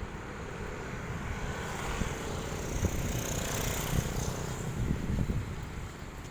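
A motor vehicle or aircraft engine passing by, its sound rising to a peak midway and then fading, over a low rumble.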